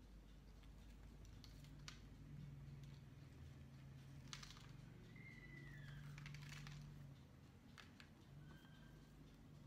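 Near silence: faint room tone with a low steady hum and a few light ticks.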